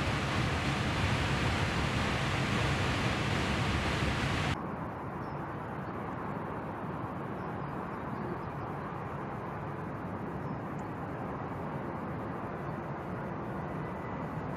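A loud, steady rushing noise cuts off abruptly about four and a half seconds in. It gives way to the quieter, steady roar of a twin-engine jet airliner's engines at takeoff thrust, with a faint high whine near the end.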